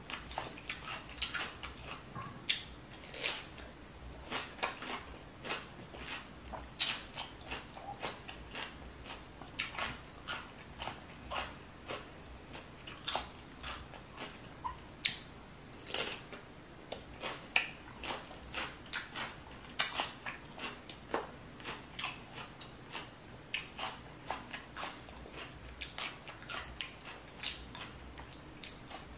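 A person chewing and biting food close to the microphone: irregular wet crunches, mouth clicks and smacks, several a second.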